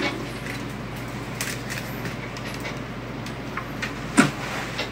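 Small handling clicks on a workbench: a few faint taps and one sharp click about four seconds in, over a steady background hum.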